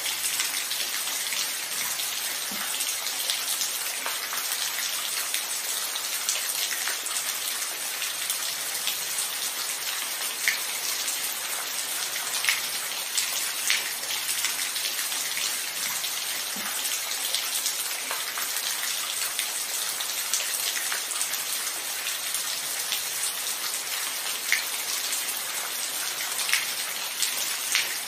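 Steady rain falling, a constant hiss with scattered louder individual drops ticking every second or two; no thunder.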